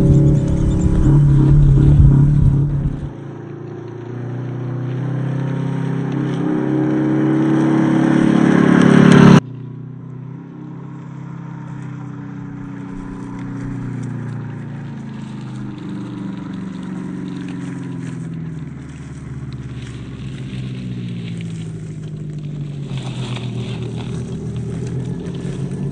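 Brushed 550 electric motor and drivetrain gears of a 1/10-scale RC crawler whining, the pitch rising and falling with the throttle, with some scraping from the tyres on the trail. The sound climbs loudly and then drops off abruptly about nine seconds in, continuing quieter after that.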